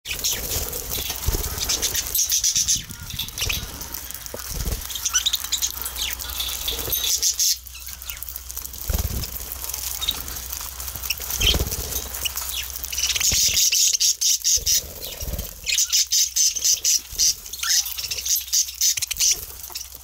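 Budgerigars chattering and chirping while they feed at a seed dish, mixed with many quick small clicks of seeds being husked. A few dull low thumps stand out now and then.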